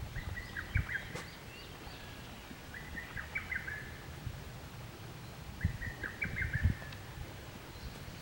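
A songbird singing the same short phrase three times, about three seconds apart, over a faint low rumble with a few soft thumps.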